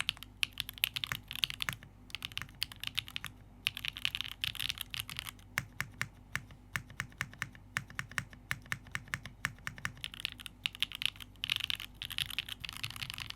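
Typing on a mechanical keyboard: lubed Gateron Type A switches in a gasket-mounted Transition Lite with a carbon fibre plate and JTK keycaps. The keys clack in quick runs of presses, with slower single presses between.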